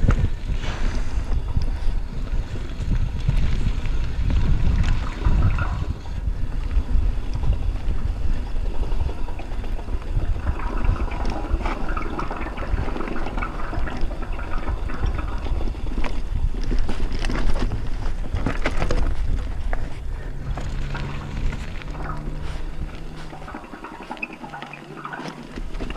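Wind buffeting a helmet action camera's microphone while a mountain bike's tyres roll over loose stones, with the bike rattling on the rocky track. The noise eases briefly near the end.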